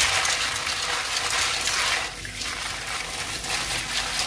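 Tap water running into a steel pot of red kidney beans while a hand swishes and rubs the beans to wash them: a steady splashing gush that eases briefly about halfway.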